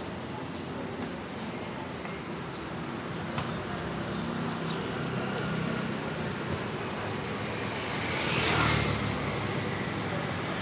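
Street traffic on a wet road: a steady hiss with engines running low underneath. About eight seconds in, a vehicle passes close, its tyre hiss swelling and fading.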